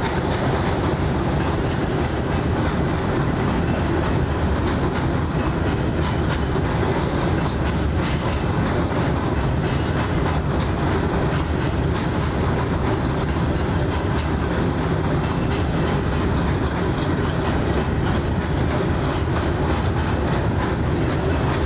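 Freight train of empty covered hopper cars rolling past: a steady rumble with the clatter of steel wheels over the rails.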